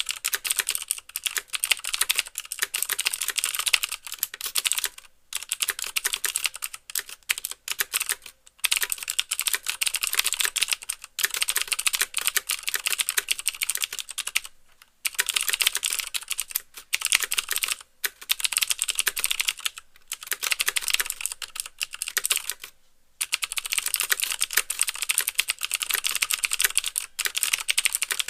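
Fast typing on a mechanical keyboard with clicky Cherry MX Blue switches, each keystroke giving a sharp click plus the clack of the key bottoming out. It comes in runs of quick keystrokes broken by brief pauses of about half a second.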